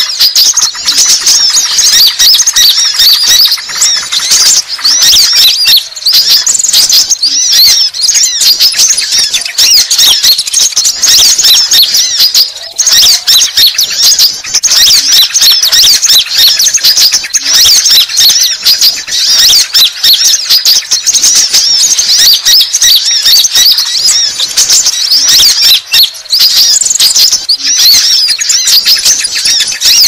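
Konin (kolibri ninja) sunbird calls in a lure recording: a loud, dense, unbroken stream of rapid, high-pitched chirps and twitters, the kind of call played to draw in wild sunbirds and provoke rival males.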